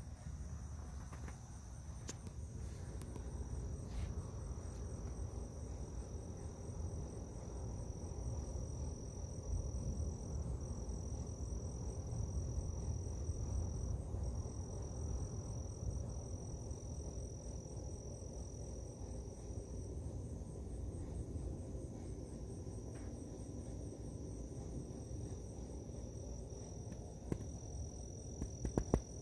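Night insects trilling in a steady high, thin tone that breaks off briefly now and then, over a continuous low rumble. A few sharp clicks come near the end.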